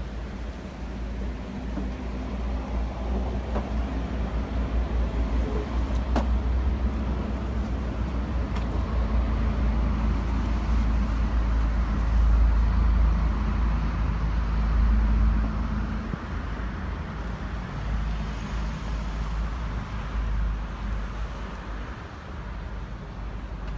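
Fishing boat's engine running steadily at low revs alongside the quay, a low rumble that is loudest around the middle.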